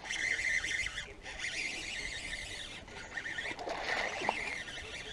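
A fish strikes a topwater lure, splashing on the water surface about four seconds in, over a rasping sound that stops and starts every second or so.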